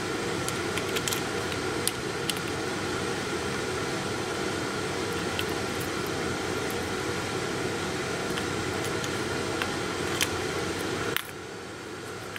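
A steady hiss like a fan, with a faint high whine and a few faint ticks. It cuts off abruptly near the end.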